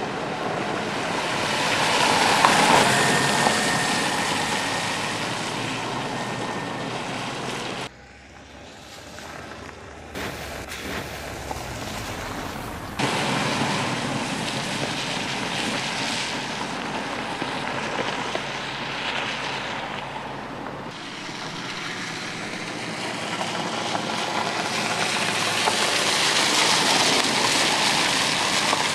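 Opel Mokka X compact SUV driving on a gravel road: engine and tyres crunching over the loose surface. It swells as the car passes about two seconds in and again near the end, with a couple of sudden jumps in level between shots.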